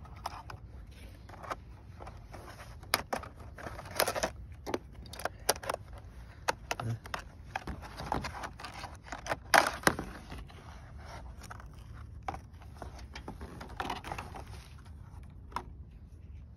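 Handling a new flat car wiper blade and its plastic parts: irregular clicks, knocks and plastic rattles, with rustling and crinkling between them. The loudest knock comes about nine and a half seconds in.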